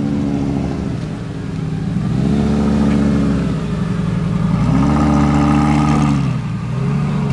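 A supercar engine revving in a series of throttle blips, each rising and falling back in pitch, about three within a few seconds.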